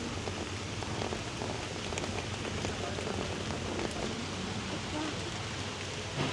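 Steady hiss of falling water, like rain on surfaces, with faint scattered drips or clicks.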